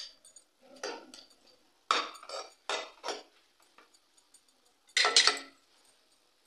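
A potato masher knocking and scraping against a kadhai as cooked peas are crushed, in about four separate clattering bursts, the loudest about five seconds in.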